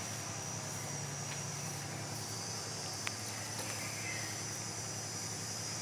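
Quiet room tone: a steady low hum and a steady high whine, with one sharp click about three seconds in.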